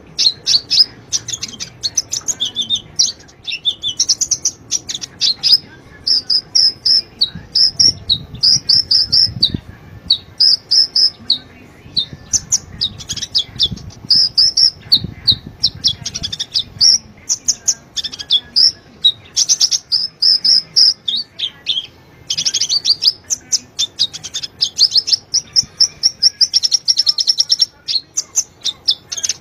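Kolibri ninja (konin), a sunbird, singing a fast, high twittering song of rapid chirp trains and repeated phrases, broken by short pauses.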